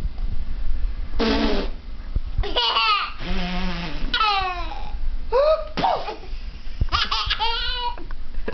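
Small child laughing in several separate bursts of high, squealing laughter, the pitch sliding down in each burst.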